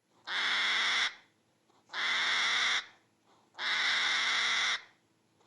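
Hedgehog huffing: three harsh, hiss-like sounds, each about a second long, evenly spaced.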